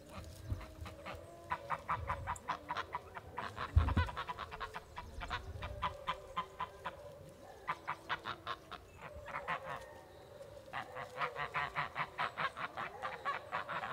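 Sebastopol geese honking in quick runs of short calls, with a brief lull about ten seconds in. A low thump is heard about four seconds in.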